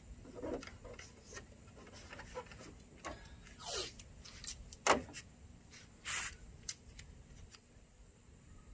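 Blue painter's tape being pulled off the roll and torn, in a few short rips, the loudest about five seconds in, with light rustling and taps as the strips are pressed down around a truck grille.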